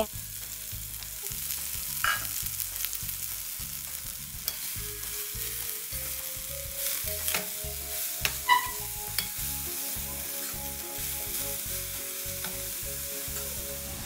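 Chopped spinach leaves sizzling in hot oil with tempered mustard seeds in a metal kadai while being stirred with a spoon, with a few sharp clinks and scrapes of the spoon against the pan.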